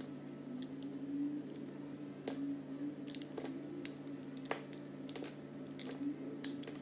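Utility knife blade slicing thin pieces off a bar of translucent soap, giving irregular sharp clicks and snaps as the blade passes through, over a faint steady hum.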